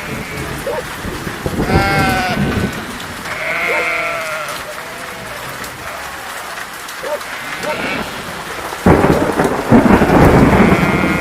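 Sheep bleating a few times over steady rain. About nine seconds in, a loud rumble of thunder breaks in.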